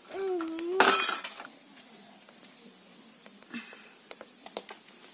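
Steel cookware and utensils on a steel plate clattering as they are set down, loudest about a second in, followed by a few light clinks. A baby makes a brief vocal sound at the start.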